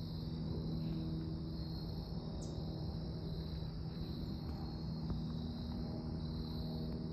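Mooney M20J light aircraft, a single Lycoming four-cylinder engine driving its propeller, flying overhead with a steady low drone. A steady high-pitched buzz runs alongside it.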